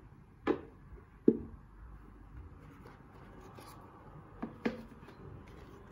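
Cardboard packaging being handled: a rigid box and a card envelope knock and tap four times, twice early on and twice in quick succession near the end, the loudest about a second in.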